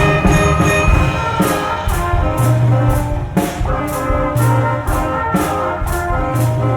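Student concert band playing a holiday piece, with brass prominent over held chords. From about a second and a half in, percussion marks a steady beat about twice a second under a deep bass note every two seconds.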